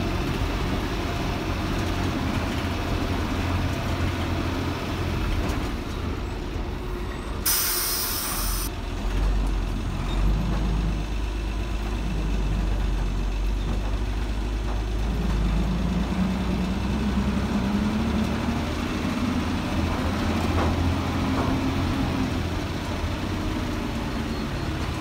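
DINA CATOSA Sansón bus's diesel engine running, with a short sharp air-brake hiss lasting about a second some eight seconds in. From about fifteen seconds in, the engine note climbs and holds as the bus pulls under power.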